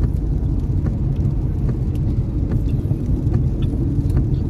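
Steady low rumble of a car's engine and road noise heard from inside the cabin while driving, with a few faint light clicks scattered through it.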